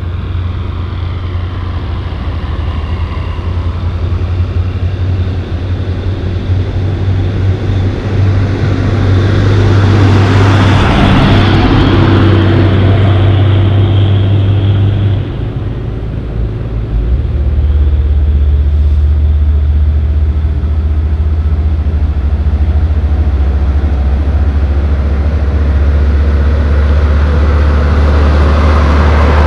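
Diesel engine of a heavy haul truck, a Volvo tractor pulling two tipper trailers as a road train, running with a steady deep drone as it approaches. A rushing swell of road noise comes about a third of the way in. About halfway through the drone dips briefly, then settles at a lower note.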